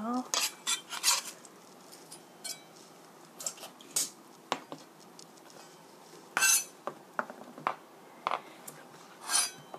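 Kitchen knife knocking and scraping on a plastic cutting board, mixed with clinks from a plate and a stainless-steel strainer being handled. The sounds come as scattered separate knocks rather than a steady chopping rhythm, with two longer, louder scrapes, one past the middle and one near the end.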